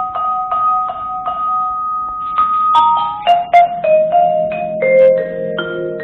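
Tuned mallet percussion playing. One note is struck over and over, about three times a second, for the first two seconds, then a run of different notes that ring on and overlap.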